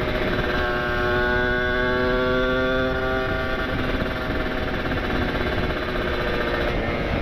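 Kawasaki Ninja RR's 150 cc two-stroke single breathing through an ABRT20 aftermarket exhaust, running at a steady cruise, its pitch easing down slightly in the first few seconds, under heavy wind rush.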